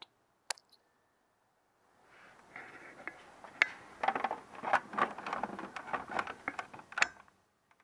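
Faint irregular rustling and scraping with many light clicks and taps, starting about two seconds in and stopping shortly before the end. A single click comes half a second in.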